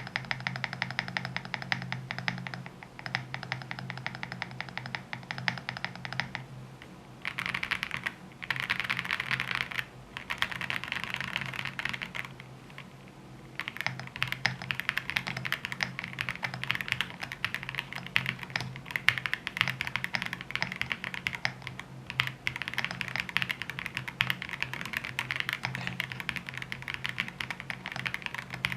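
Typing on a Cupid65 gasket-mount mechanical keyboard with Cupid switches and XMI Cat keycaps: fast runs of keystrokes broken by a few short pauses, with a low steady hum underneath.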